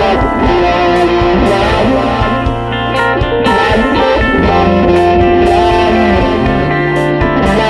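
Background music with electric guitar.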